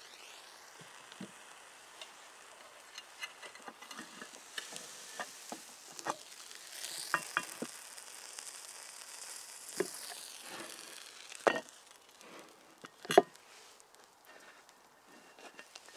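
Hot cast-iron sandwich iron, just off the fire, set down on wooden boards and opened: the toasted sandwich inside sizzles and crackles, with sharp clacks and knocks of iron on wood. The loudest knock comes about 13 seconds in.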